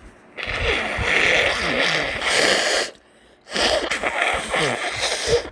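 A person's nose congested from a cat allergy: two long, noisy nasal blasts with a wet, wavering rattle, the first about two and a half seconds, the second about two seconds after a short pause.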